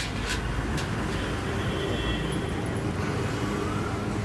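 Steady low rumble of background traffic, with two light clicks at the start.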